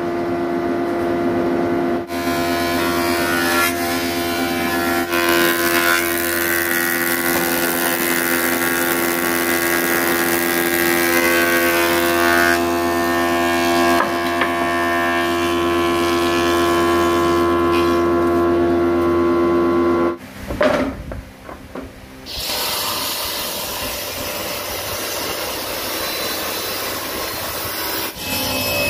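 STRENGTH thickness planer running with a steady hum while a board feeds through and is planed. About twenty seconds in the sound cuts off and stutters for a couple of seconds, and then a different steady machine noise follows, a table saw running.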